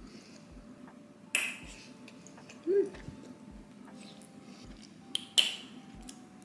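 Noodles being slurped from a bowl, a short sharp slurp about a second in and another after five seconds, with a brief cat meow between them.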